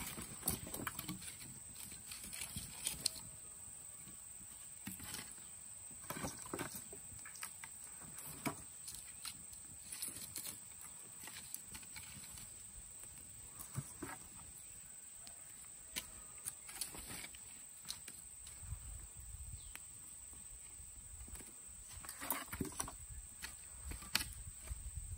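Split, charred pieces of wood being laid across a smoking earth-oven pit, knocking and clattering against each other in scattered bursts, with a thin steady high tone underneath.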